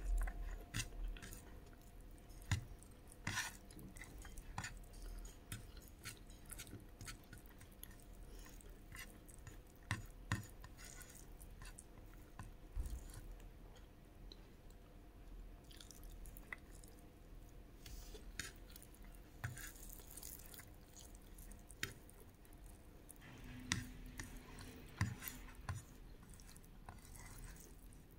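Close-up chewing of chickpea curry and rice, heard as many scattered soft clicks over a faint steady hum.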